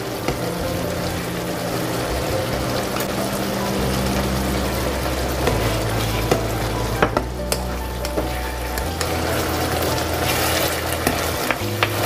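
Eggplant and ground pork sauce sizzling and bubbling in a frying pan, stirred with a wooden spatula, as starch slurry is mixed in to thicken it. A few sharp knocks of the spatula on the pan come about halfway through and near the end.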